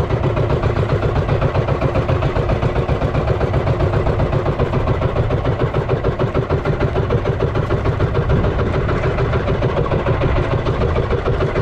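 The engine of a motorised outrigger boat (bangka) running steadily at trolling speed.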